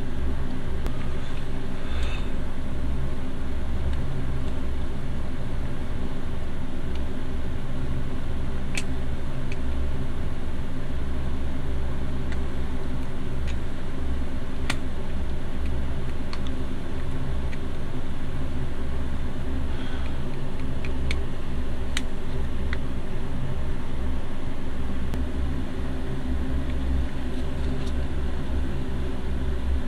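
A steady low machine hum, with a few light clicks and taps as small metal and plastic toy-van parts are handled and fitted together.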